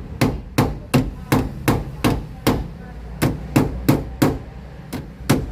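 Hammer striking a car's sheet-metal body panel in a steady run of sharp blows, about three a second with a brief pause midway: panel-beating to work out a dent.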